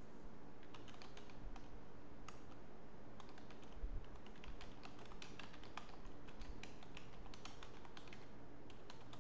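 Typing on a computer keyboard: irregular runs of key clicks starting about a second in, over a low steady hum.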